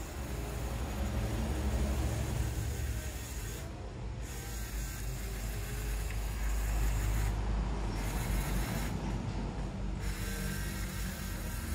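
Small DC gear motors of a wheeled Arduino robot whirring steadily as it drives along its line track.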